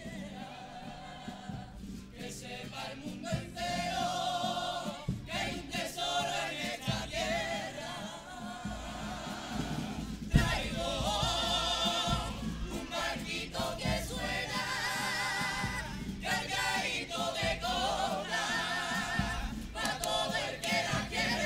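Youth carnival comparsa chorus singing a song in harmony, many voices with vibrato. A single sharp thump stands out about halfway through.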